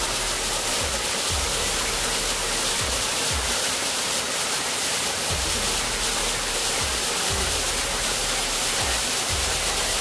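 Steady rush of a waterfall pouring down a rock face, with background music and its low, repeating beat underneath.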